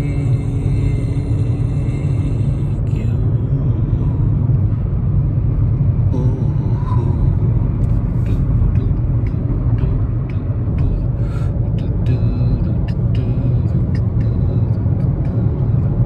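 Steady low rumble of a car driving, heard from inside the cabin, with a few short ticks and clicks in the second half.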